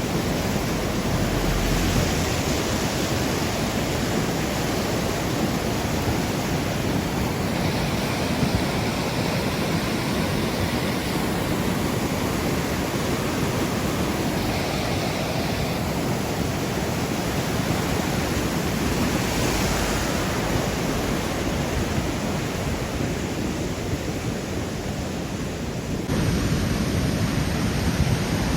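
Steady rushing of fast, swollen floodwater: a constant noise with no distinct events. Near the end it shifts a little, as if to another shot of the water.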